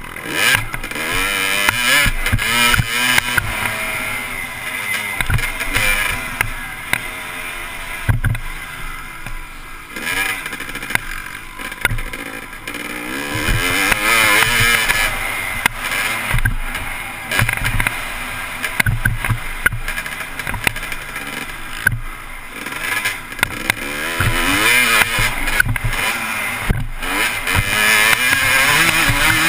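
Dirt bike engine on a motocross track revving up and down as the rider accelerates and backs off through the gears, with wind buffeting the helmet-mounted microphone.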